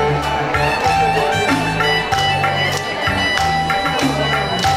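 Live music: a reedy, wind-like lead melody over a steady stepping bass line, with regular percussion strokes.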